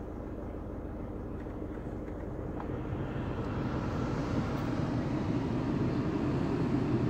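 VW Golf 6 cabin blower fan running with a steady rush of air, getting louder from about three seconds in as the fan speed is stepped up.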